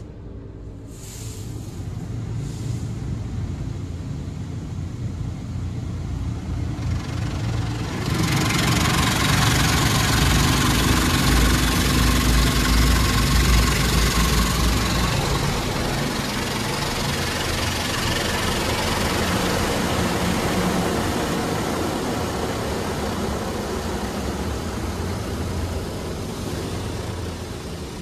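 High-pressure water jets of a touchless automatic car wash spraying the car, heard from inside the cabin. A low rumble fills the first several seconds, then a loud hiss of spray on the glass and body starts suddenly about a third of the way in and slowly eases off toward the end.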